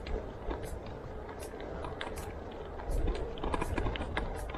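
Indistinct background voices with scattered sharp clicks and knocks over a low rumble.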